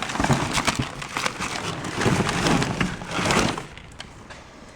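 Rummaging through a box of loose hard objects: a rapid run of clattering, knocking and scraping that stops about three and a half seconds in.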